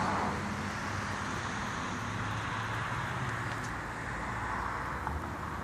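Steady outdoor background noise: a low hum under an even hiss, typical of distant road traffic.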